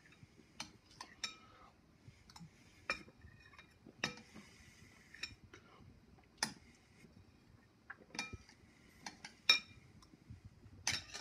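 Irregular light clinks and taps of something small and hard, about one a second. Several ring briefly, and the loudest come near the end.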